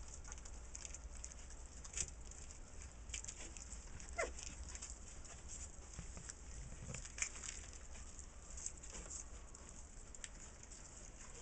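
Blue-nose pit bull puppies eating from a plastic bowl: faint chewing and lapping with small scattered clicks of food, teeth and paws against the bowl and floor. About four seconds in, one puppy gives a short whimper that falls in pitch.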